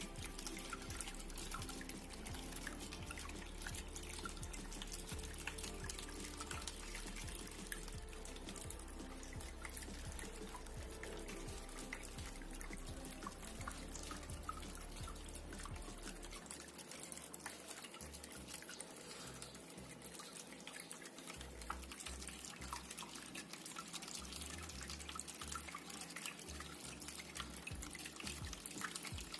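Small homemade tabletop waterfall fountain running: water trickling and dripping steadily, with many small splashes.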